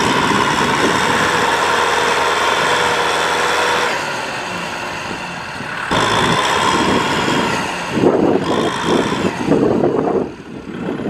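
Kubota M6040SU tractor's diesel engine running hard under load, stuck in deep mud and pulling a loaded trailer. The sound changes abruptly a few times, and grows rougher and more uneven near the end.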